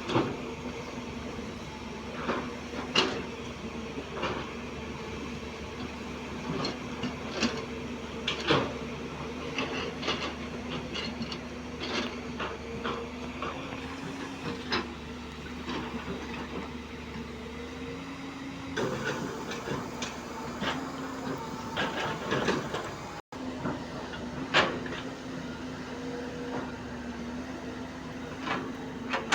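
JCB NXT 205 excavator's diesel engine running at a steady pitch while the machine works, with frequent sharp knocks and clanks from the bucket and stones.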